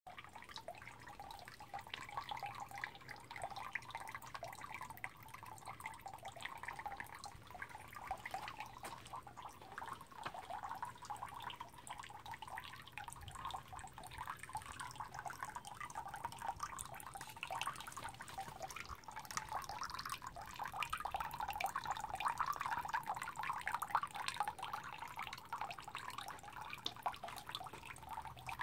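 Water trickling from a dragon-shaped spout into a stone temizuya purification basin, a steady splashing patter that grows somewhat louder about two-thirds of the way through.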